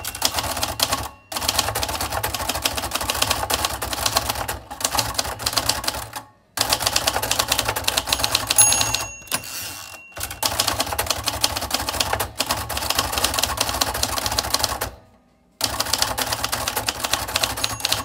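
Fast typing on a 1975 Royal Custom III manual typewriter: a continuous rapid clatter of keys and typebars striking, broken by a few short pauses. The carriage's end-of-line bell rings once about halfway through.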